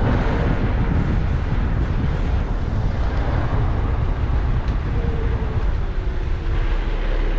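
Suzuki Vitara driving slowly along a narrow lane: a steady low rumble of the engine and road noise.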